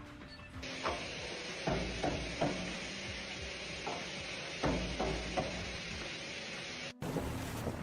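A steady hiss that starts under a second in and cuts off suddenly near the end, with about eight sharp knocks or clacks at uneven intervals.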